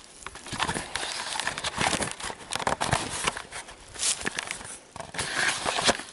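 Irregular crackling and rustling of dry leaves mixed with sharp knocks from the camera being handled and moved close to the ground.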